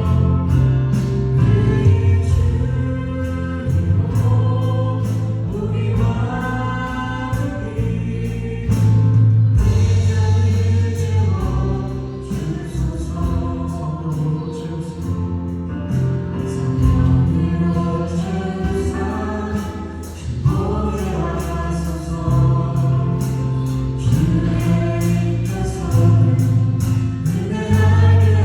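Worship band rehearsing a Korean praise song: several voices singing together over keyboards, acoustic guitar and a steady drum beat.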